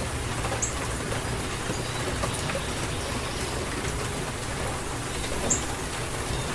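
Heavy rain pouring steadily in a rainstorm, a dense even hiss over a low rumble, with a few short sharp drops standing out, one about five and a half seconds in.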